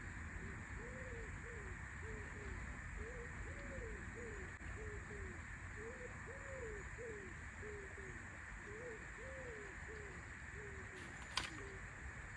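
A pigeon cooing: a long run of low, soft coos, each rising and falling in pitch, in short phrases. Near the end there is a single sharp click.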